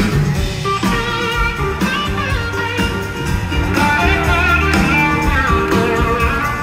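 Live band playing an instrumental passage, an electric guitar lead with wavering held notes over drums and bass, picked up from the audience.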